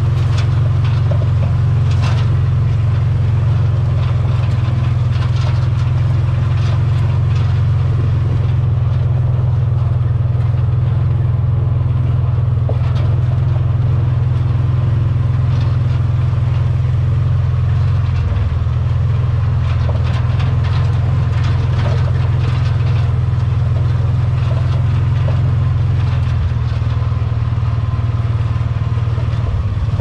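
Engine of a Gator utility vehicle running steadily under load as it rides down a rough trail, a constant low drone with scattered knocks and rattles over it.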